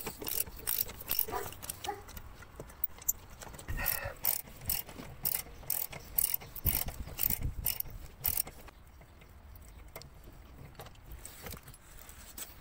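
10 mm socket ratchet clicking in quick irregular runs as the undertray screws are loosened, the clicks thinning out about two-thirds of the way through.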